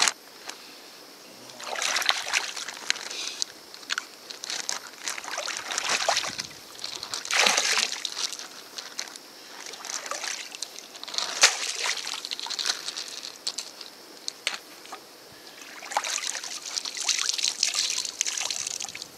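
Lake water sloshing, trickling and splashing in several separate bursts as a plastic zip-top bag is rinsed out in the water. Near the end, hands are rinsed, with water dripping and splashing back into the lake.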